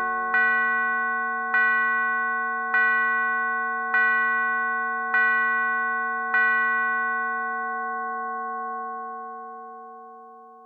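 Background music ending: a bell-like note struck six times, about once every second and a bit, over a held chord, then left to ring and fade out.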